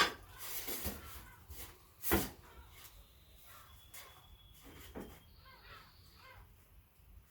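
A filled tortilla wrap being folded and handled: soft rustling, with a sharp knock at the start and another about two seconds in.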